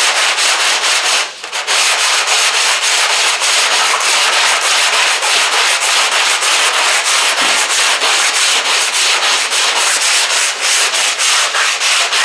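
Sanding block rubbed back and forth by hand over a bare steel car roof, a rough scraping hiss in even strokes about three a second, with a brief pause about a second in. The block sanding shows how far the dent has been worked out with hammer and dolly.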